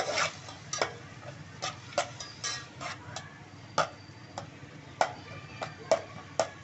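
Metal spoon stirring chicken pieces in a steel pot, clinking and scraping against the pot about a dozen times at irregular intervals, as the chicken fries with ginger-garlic paste.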